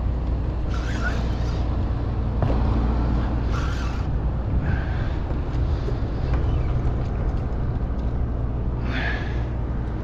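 Steady low wind rumble on an action camera's microphone, with a few short hissing bursts over it.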